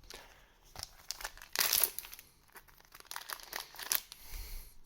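Foil trading-card booster pack wrapper crinkling and tearing as it is opened, in irregular rustles, loudest a couple of seconds in and again near the end.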